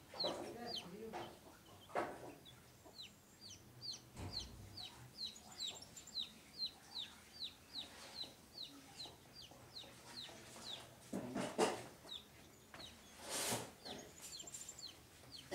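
A young chick peeping over and over, short high notes that fall in pitch, about two to three a second; the chick is said to be lost. A few brief rushing noises break in near the end.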